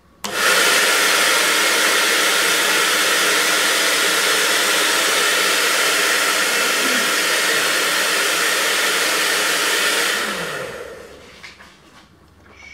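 Handheld electric hair dryer switched on, blowing with a loud, steady whoosh for about ten seconds, then switched off and winding down.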